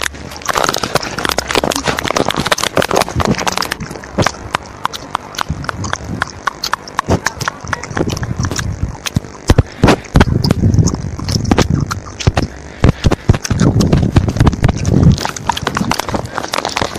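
Rapid, irregular clicks of a phone keyboard typing sound effect as chat messages are typed, with a few deeper thuds in between.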